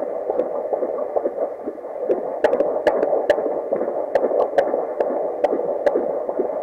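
Fetal heartbeat heard through a Doppler monitor: a steady hiss with a fast, regular pulse, a little over two beats a second.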